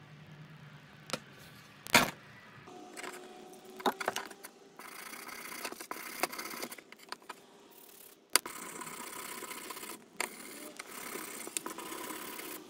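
Wire brush scrubbing a rusty steel knife blade just out of a rust-remover bath, in long stretches of strokes broken by short pauses, from about five seconds in. Before that, a few light clicks and one sharp knock about two seconds in.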